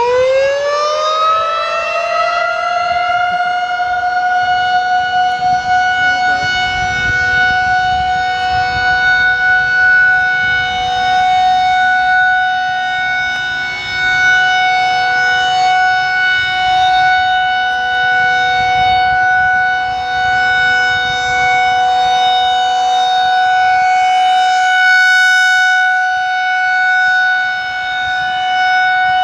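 Federal Signal 2001-SRN electromechanical outdoor warning siren being tested. It finishes winding up to full pitch in the first couple of seconds, then holds one steady, loud tone.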